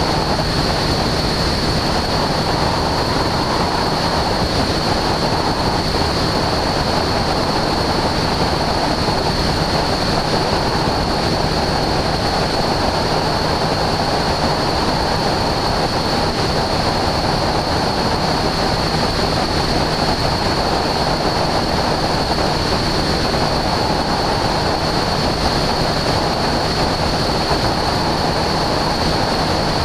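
Aviat Husky A-1C in level cruise: the steady drone of its engine and propeller under a heavy rush of wind on the microphone, with a thin steady high tone over it.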